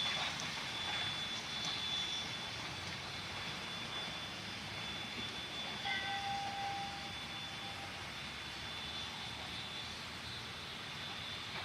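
Steam train hauled by a small 0-4-0 tank locomotive running off into the distance, a steady rumble, with a brief whistle note about six seconds in. A faint, steady insect drone sits above it.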